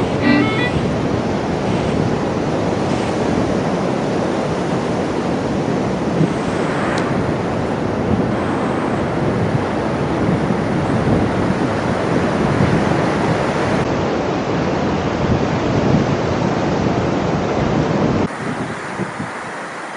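Steady wind buffeting on an Insta360 action camera's microphones while riding a motorcycle, a dense rush of wind and road noise. Near the end the low rumble suddenly drops away, leaving a thinner hiss.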